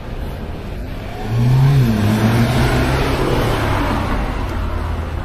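A motor vehicle accelerating past on the road: about a second in its engine note rises and then holds, over a rush of tyre and road noise that peaks and fades away over the next few seconds.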